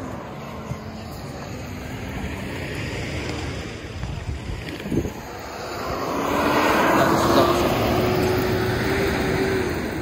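A vehicle passing on a wet, slushy street: tyre hiss and engine swell up from about six seconds in, the engine note rising slowly, then ease off near the end. Before that, a steady background of traffic noise.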